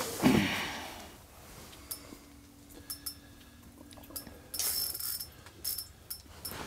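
Light clicks and handling rattles from an ice-fishing rod and reel while a walleye is played on the line. A brief voice sound comes at the start, and a short burst of hiss about four and a half seconds in.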